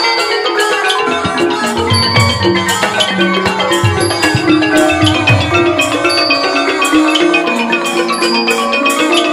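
A Thai piphat mai khaeng (hard-mallet) ensemble plays an instrumental passage: ranat ek xylophone and gong circles run quick dense melodic lines over regular small-cymbal clicks. Low drum strokes come in about two seconds in.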